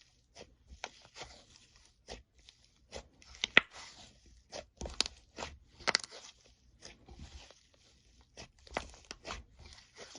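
Slime being squeezed and stretched by hand, giving irregular crackles and pops, with one sharp pop a few seconds in.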